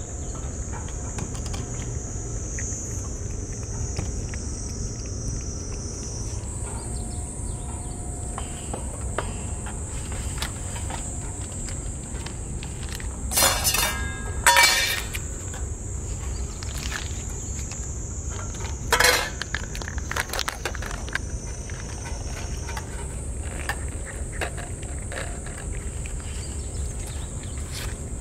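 Cicadas buzzing steadily at a high pitch over a low background rumble. About halfway through come three short crinkling bursts, two close together and one a few seconds later, from a plastic cat-food pouch being handled over a metal feeding plate.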